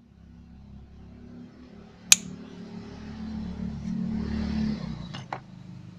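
Sharp metallic clicks from pliers working on a motorcycle's front brake master cylinder: one loud click about two seconds in, then a quick pair near the end. Under them a motor vehicle's engine hum swells and then fades away.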